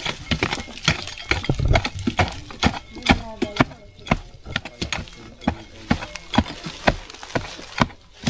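Irregular sharp knocks from a tool striking repeatedly, about one to three a second. A brief voice is heard about three seconds in.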